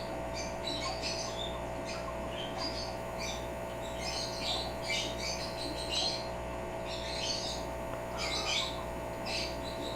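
African grey parrot chirping and clicking in quick clusters of short, high notes, over a steady electrical hum.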